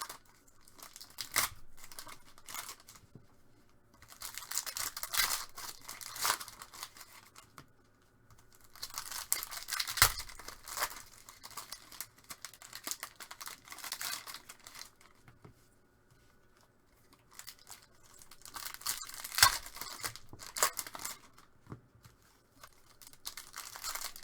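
Trading card pack wrappers being torn open and crinkled, in several bursts a second or two long with quieter spells between them, as cards are unpacked and handled.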